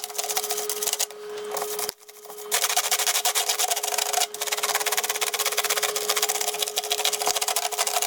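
Paintbrush bristles wet with isopropyl alcohol scrubbing quickly back and forth over plastic keyboard keys, in fast, even, scratchy strokes that pause briefly about two seconds in.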